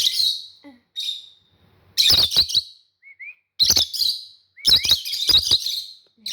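Pet parrots chirping in short, high-pitched bursts, about half a dozen clusters with short pauses between.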